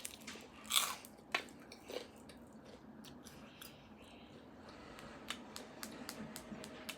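Close-miked mouth sounds of a person chewing food, with a short noisy burst about a second in and scattered soft wet clicks throughout.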